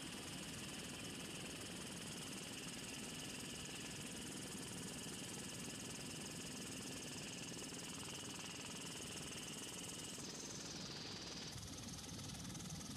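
Steady aircraft engine drone heard from inside the cabin, with a high whine in it that drops away about ten seconds in.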